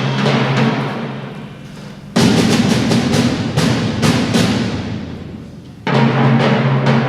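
Concert wind band playing loud accented chords with timpani and percussion strokes. A held chord fades away, then the full band comes in suddenly about two seconds in and again near the end, each time dying away.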